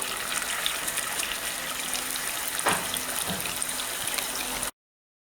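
Steady sizzling and bubbling of hot liquid in a cast-iron pot on the stove, with fine crackles throughout. The sound cuts off abruptly about four and a half seconds in.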